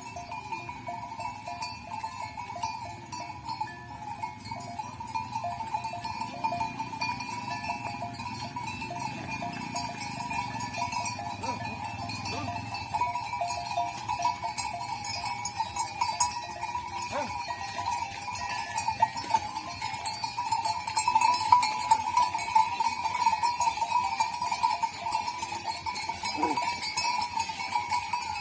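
Bells hung on cows' necks, clanking and jingling continuously as the animals move.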